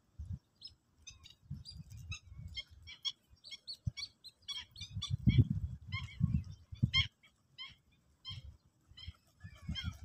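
A flock of sparrows chirping, many short separate chirps overlapping, busiest in the middle, with irregular low rumbling bursts underneath that are the loudest sound.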